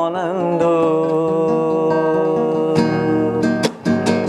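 A song sung in Uzbek with instrumental accompaniment: the singer ends a line on the word "onamdur", then the accompaniment carries on alone with steady held notes and a run of sharp strikes in the last second or so.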